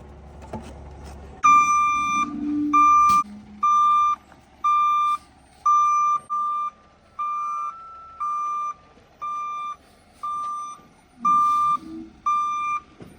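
Concrete pump truck's reversing alarm beeping steadily, about one and a half beeps a second, starting about a second and a half in as the truck backs up. A low engine rumble sits under the start and fades after about three seconds.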